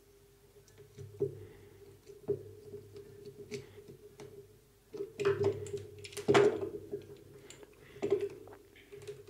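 Hands and a screwdriver working a plastic push-button station: small clicks and knocks as the wire terminal screws are tightened, with louder knocks and rattles of the plastic housing about five to six and a half seconds in. A steady low hum runs underneath.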